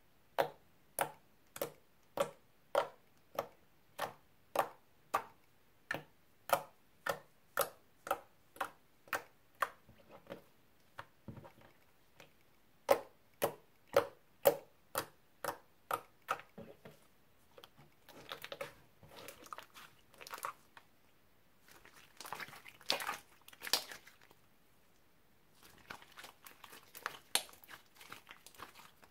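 Clear slime mixed with pencil lip balm being poked with a fingertip: sharp sticky clicks, about two a second, with a short pause partway through. From a little past halfway it turns into irregular squishing and crackling as the slime is folded and squeezed in the hands.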